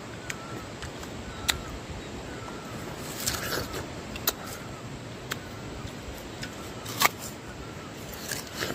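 Bites and chewing of a crisp, ripe pear close to the microphone: sharp crunches every second or so, the loudest about seven seconds in, over a steady outdoor background.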